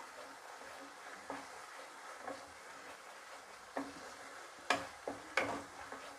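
Spatula stirring a thick tomato-and-spice masala paste frying in oil in a kadai, sautéed until the oil separates: a faint steady sizzle with a few short scrapes and taps of the spatula on the pan, the loudest about four and a half to five and a half seconds in.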